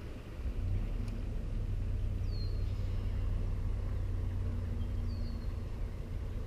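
A steady low rumble, with two short, faint descending bird chirps.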